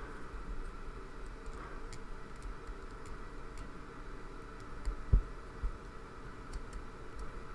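Quiet handling of a disassembled pin-tumbler lock's core and housing: a few faint light ticks and one soft dull thump about five seconds in, over low room tone.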